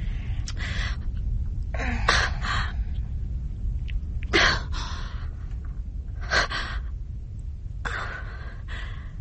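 A woman's sharp, frightened gasps and shaky breaths, one every second or two, the loudest about two and four seconds in, as a needle is put into her. A steady low hum lies underneath.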